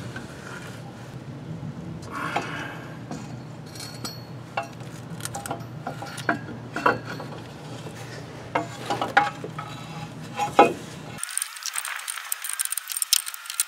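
Light metallic clinks and knocks of an aluminium oil cooler assembly being handled and worked up into place against a diesel engine block. Near the end there is a quicker run of fine, high clicking.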